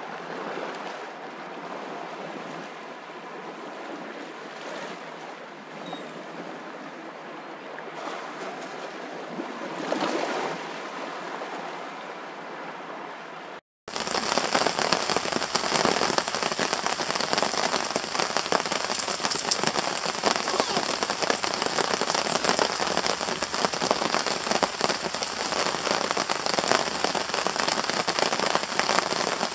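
A soft, even rushing hiss that swells briefly about ten seconds in. Then, after a sudden cut about halfway through, steady rain falls on a tarp overhead: a dense, louder hiss of countless small drop hits.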